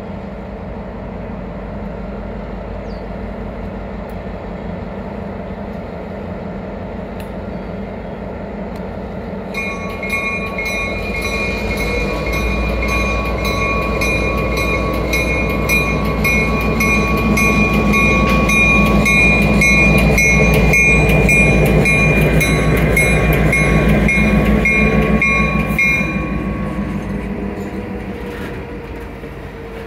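BN 3613 diesel switcher locomotive running and pulling cars close by, its engine swelling as it passes. Its bell rings repeatedly from about a third of the way in until near the end, where the ringing stops and the sound fades as the cars roll on.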